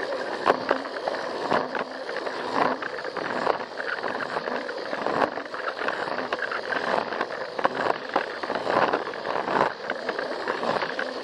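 A Plarail battery-powered toy train running on blue plastic track, heard close up: its small motor and gears whirring steadily while the wheels clatter, with frequent irregular clicks.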